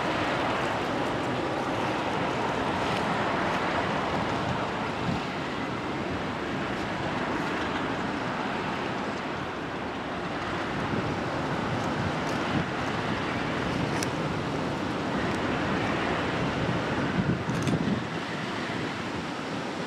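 Steady wind noise on the microphone over the low, even running of a diesel engine, with a few faint clicks.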